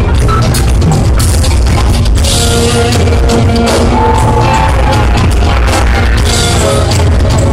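Live rock band playing loud: a driving drum-kit beat, electric guitar and deep bass, heard from among the audience.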